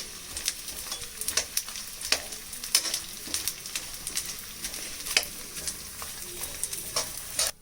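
Edible gum (gond) frying in hot ghee: a steady sizzle with many sharp pops and crackles as the pieces puff up like popcorn.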